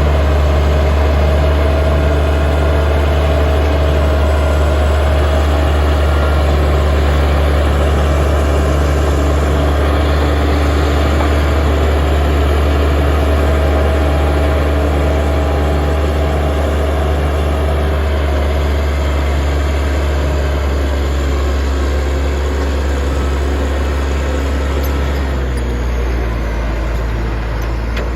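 Bulldozer's diesel engine running steadily, a heavy low hum with a faint higher whine that slowly drifts lower; the engine note shifts slightly near the end.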